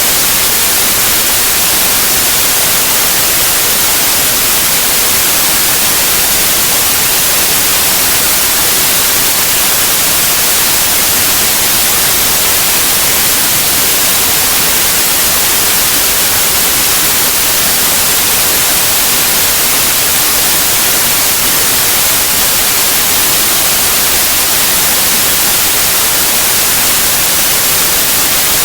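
Steady white noise: an even, unchanging hiss, loud and brightest in the high end.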